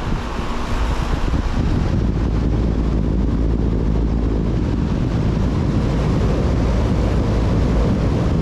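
A 1995 Payne Teardrop 5-ton central air conditioner condenser unit with a Copeland scroll compressor, running steadily: a loud, even rush of fan air over a low hum.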